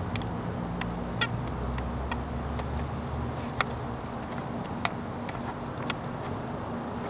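Low steady rumble of a vehicle engine, with a few sharp ticks at irregular intervals.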